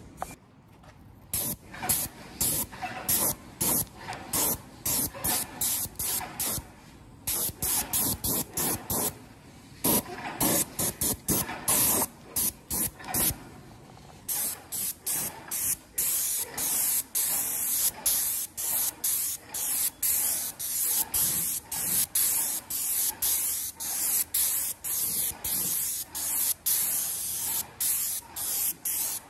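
Graco GX 21 airless paint sprayer's spray gun hissing in many short bursts as the trigger is pulled and released, about one or two a second, while paint is sprayed onto steel beams.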